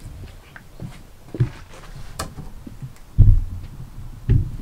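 Irregular dull, heavy thumps: one about a second and a half in, the loudest just after three seconds and another near the end, with a single sharp click a little after two seconds.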